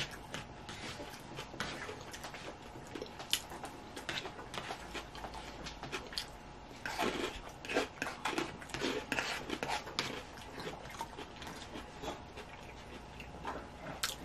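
Close-miked eating: chewing and mouth sounds from bites of salad and smoked salmon, with irregular clicks and scrapes of a plastic fork on a paper plate. The sounds are busiest about halfway through.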